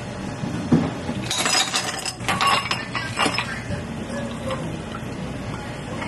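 Ice cubes and a metal spoon clinking against a tall glass as an iced americano is stirred: a quick run of bright clinks starting about a second in and lasting about two seconds.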